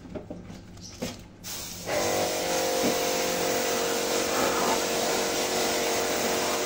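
A pressure washer starts about two seconds in and runs steadily, its motor humming under the hiss of the water jet spraying the outdoor AC unit's casing.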